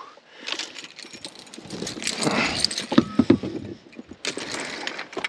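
Small metal objects clinking and jangling amid rustling, in a few short irregular bouts.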